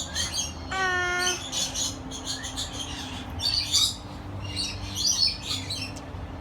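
A flock of parrots chirping and chattering in quick, high, overlapping bursts, with one clear whistled call about a second in.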